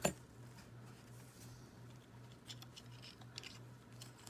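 Faint steady low electrical hum, with a few light clicks and taps from small die-cast toy car parts being handled.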